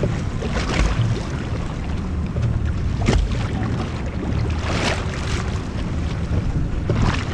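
Wind rumbling on the microphone aboard a motorboat at sea, with water slapping and splashing against the hull four times.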